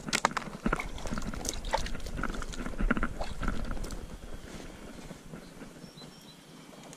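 Handling noises at a fishing keepnet: a quick run of knocks, clicks and small splashes as a small carp goes into the net and a plastic bait-box lid is handled. These die away about four seconds in.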